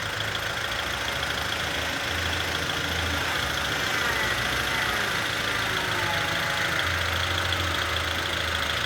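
Engine of an earthmoving machine running steadily, its low hum swelling and easing every second or two.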